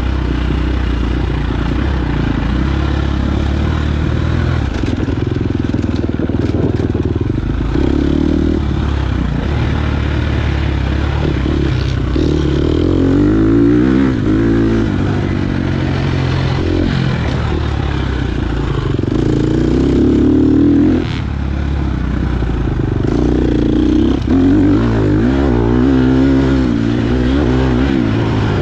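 KTM 250 XC-F four-stroke dirt bike engine revving hard and easing off again and again, its pitch rising and falling through the gears, with a few knocks and clatters.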